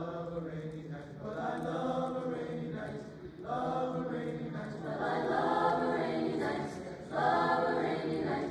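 Mixed chamber choir of teenage voices singing in harmony, in phrases a second or two long with short breaks between them, growing louder about five seconds in.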